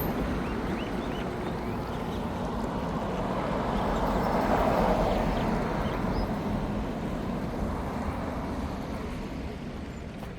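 Street traffic noise, with one vehicle passing close: its sound swells about four to five seconds in, then slowly fades.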